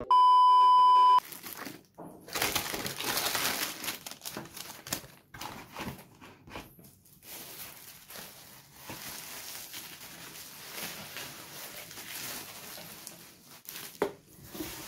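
A steady electronic test-tone beep for about a second, then plastic bubble wrap being handled and wrapped around a box, crinkling and rustling irregularly.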